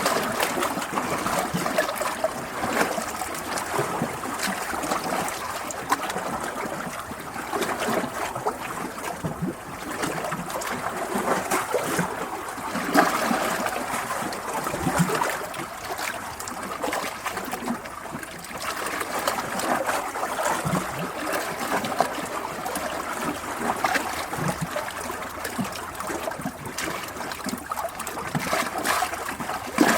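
Running water of a stream flowing steadily, with many small splashes and gurgles throughout.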